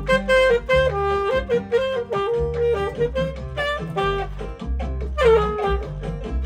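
Alto saxophone playing a jazz melody of short, changing notes, with a slide into a note about five seconds in, over a backing track with a bass line.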